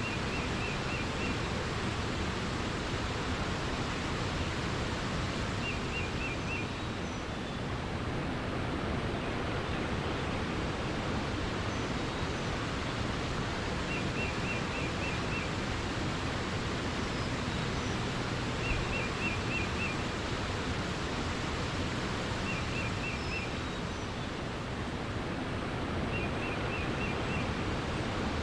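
Steady rushing water with a small bird singing a short phrase of about five quick high notes, repeated six times a few seconds apart.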